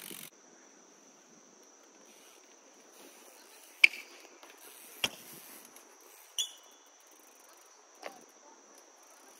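Four sharp clicks or knocks spaced a second or more apart, the third with a brief metallic ring, over a faint steady high-pitched tone.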